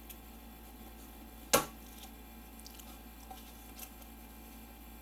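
A single sharp click about a second and a half in, then a few faint ticks, as small plastic cable connectors are worked loose from a graphics card's circuit board.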